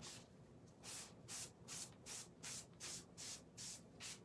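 Wet scrubber sponge with little bumps rubbed back and forth over a stencil sheet to wash the paste off it: a faint run of short swishes, about three strokes a second, with a brief pause just under a second in.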